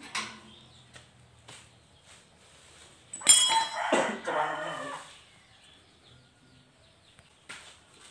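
Light knocks of a steel frame and wheels being handled, with one sharp metallic clang about three seconds in, followed by about two seconds of a pitched, wavering call.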